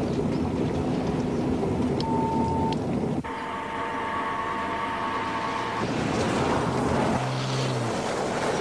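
Car driving: steady engine and road noise that changes abruptly several times, with a steady high tone running through the middle few seconds.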